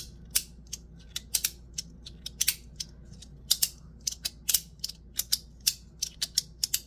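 FidgetThings Tab Chonky Boi magnetic fidget slider being slid back and forth, its N52 magnets snapping the plates into place. The result is an irregular run of sharp clicks, several a second and often in quick pairs.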